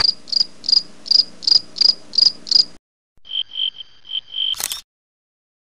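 Crickets chirping: a high chirp repeated evenly about three times a second, eight times, then after a short pause a lower chirp in a few quick short runs. A brief sharp noise near the end.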